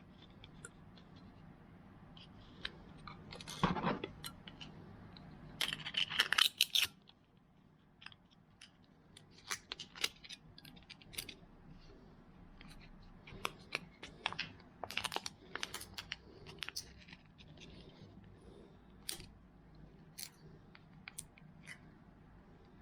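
Scattered light clicks, taps and rustles of small objects being handled. There is a louder scrape about four seconds in and a brief flurry of sharp clatters around six seconds in.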